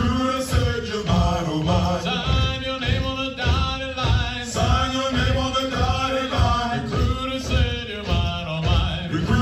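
Marine Corps hiking cadence sung by a group of male voices in unison, over a steady low beat about twice a second.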